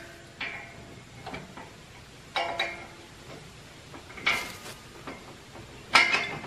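Metal clanking and clinking: several separate hits with a short ring, spaced irregularly and loudest near the end, as steel hitch gear on a tractor is handled.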